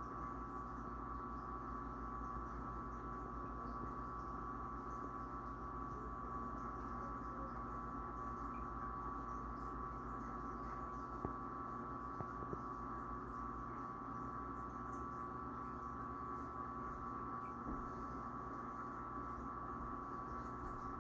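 Steady hum with a constant high whine, the running noise of reef aquarium equipment, with a few faint ticks about halfway through.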